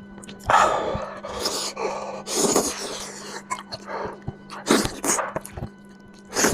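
Close-miked eating of spicy lamb head: a series of noisy slurping and sucking bursts, with a faint steady hum beneath.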